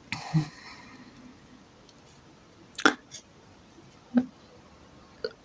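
A quiet pause with a short breath near the start, then a few faint isolated clicks, the sharpest a little under three seconds in.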